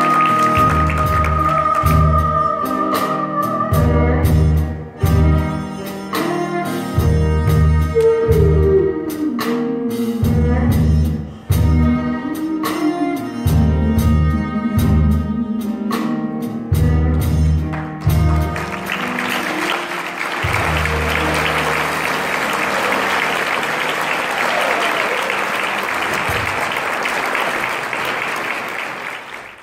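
Live band with drums and a singer performing a song; the voice holds a high note at the start and slides down in pitch midway. The song ends and audience applause takes over for the last third.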